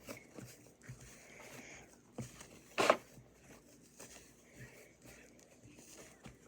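Slime being rolled into a ball by hand: faint, scattered sticky handling sounds, with one louder short burst about three seconds in.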